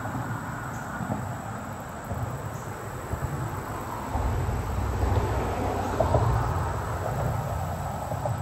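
Insects chirping steadily in the background, under a low rumble that swells about four seconds in and eases off near the end.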